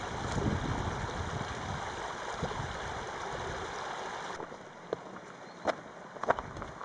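Shallow creek water running steadily over rocks. About four seconds in the water sound drops away, and a few footsteps crunch on loose creek-bed stones.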